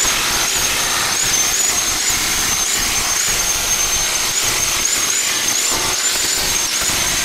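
Corded electric rotary hammer chiselling into concrete around the anchor claws of an old iron cellar window frame, running steadily with a high, slightly wavering whine over the hammering.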